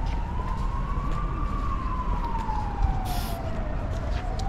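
Emergency vehicle siren wailing, its pitch rising slowly and then falling over a few seconds before starting to rise again, over a steady low street rumble. A short hiss about three seconds in.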